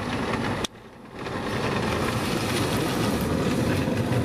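Engineless soap box gravity car rolling down an asphalt road toward the camera, a steady rushing noise of wheels on tarmac that swells after a brief drop-out, with no engine note.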